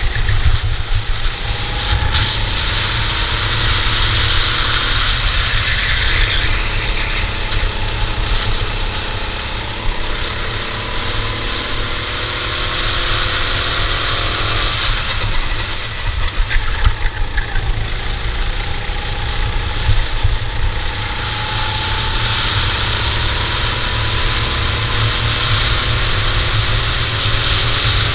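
Racing kart engine running under race load. Its pitch climbs and falls again every few seconds over a heavy low rumble.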